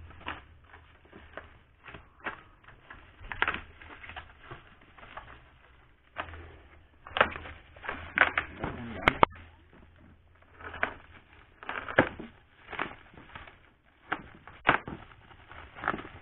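Plastic courier pouch and bubble wrap being handled and pulled open by hand: irregular rustling and crinkling broken by sharp crackles and snaps, several of them loud.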